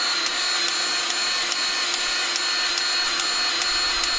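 Milwaukee cordless grease gun running on the trigger, its small motor whining steadily with a light clicking about two to three times a second as it pumps grease into the tanker drawbar's grease nipple.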